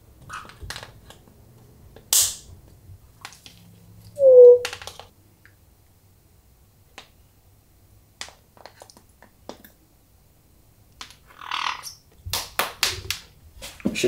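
African grey parrot tapping and clicking its beak against a metal plaque in scattered single taps, with a cluster of quick taps near the end. There is a short hissy burst about two seconds in, and a single short pitched call, the loudest sound, about four and a half seconds in.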